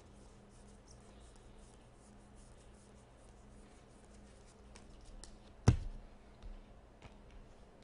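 Baseball cards being flicked through by hand, a run of faint ticks and rustles as each card slides off the stack. A little before six seconds in, a single sharp knock as the stack is set down on the table.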